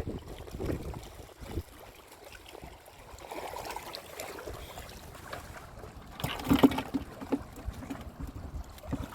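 Small sea waves washing and trickling at the shoreline, with a few soft knocks close to the microphone about six and a half seconds in.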